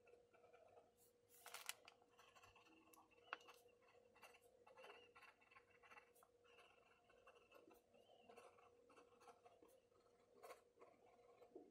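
Faint scratching of a fine-nib fountain pen writing on paper, in short irregular strokes with small ticks as the nib lifts and touches down.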